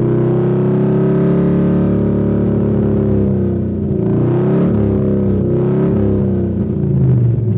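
Cobra Mustang's V8 heard from inside the cabin while driving slowly. It holds a steady note, wavers up and down in pitch about halfway through, and swells louder near the end. The engine note suggests the automatic may not be shifting out of first, a transmission problem the driver suspects.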